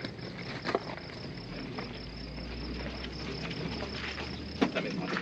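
Insects chirring steadily with a fast, even pulse, broken by a soft knock under a second in and two sharper knocks near the end.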